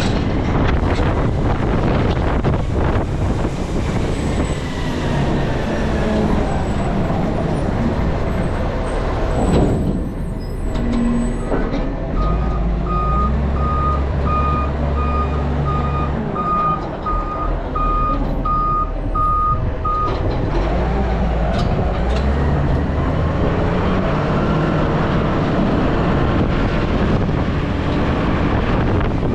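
Garbage truck's engine running, with its reversing alarm beeping steadily in the middle, about eleven beeps, a little more than one a second, for some eight seconds.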